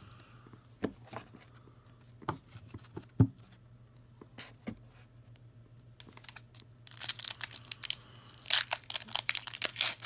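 Foil wrapper of a Pokémon trading-card booster pack crinkling and tearing open, with a few sharp clicks and taps from cards being handled before it.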